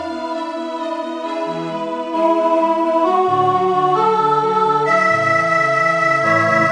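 Computer playback of a choral score with keyboard accompaniment, in a synthesized organ-like sound: sustained chords and moving notes. It gets louder about two seconds in.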